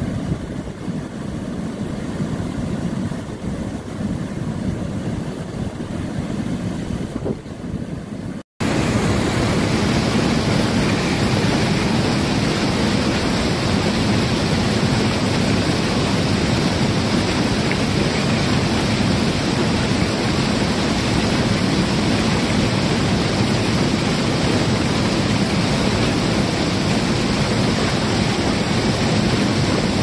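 Steady rush of floodwater pouring over a concrete weir spillway. It is quieter at first, then breaks off for a moment about eight and a half seconds in and comes back louder.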